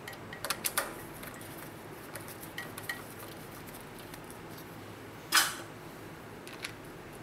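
Small metallic clicks of a T-handle hex wrench working against the stem faceplate bolts as they are threaded in: a quick cluster of clicks in the first second, then scattered light ticks. One louder single clack comes a little past five seconds in.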